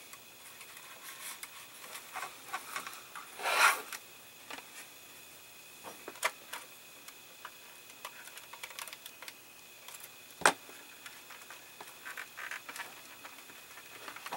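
Hands working thin wires into a plastic scale-model dashboard: scattered small clicks, rubs and rustles, with a louder rustle about three and a half seconds in and a single sharp click about ten and a half seconds in.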